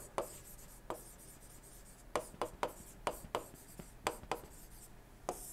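Stylus on a tablet screen handwriting words: faint, short, irregular ticks and taps as the strokes are made.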